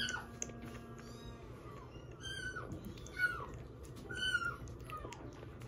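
Young kitten mewing: a string of short, high mews, about six, each rising and then falling in pitch.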